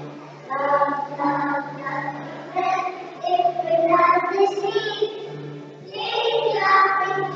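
A group of young children singing a song together in phrases, one of them into a microphone.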